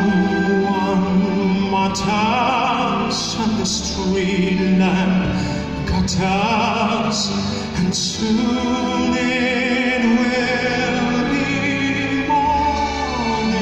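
Live orchestra playing with a male singer's voice over it, with held notes sung with vibrato.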